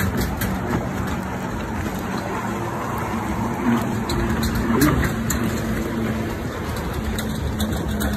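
Steady rushing outdoor noise of wind on the microphone and water around a swimming dog, with a faint low hum underneath and a few small splashes.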